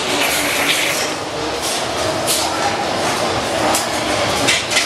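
Ghost train ride car rolling along its track, rattling and clattering, with irregular clicks and knocks over a steady rumble.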